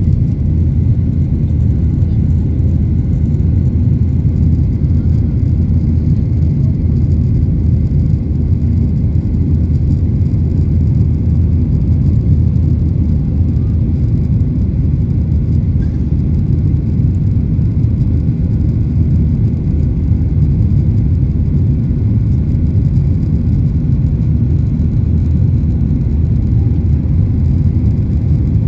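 Aircraft engines running with a steady low rumble that holds unchanged, without the rising surge of a take-off run.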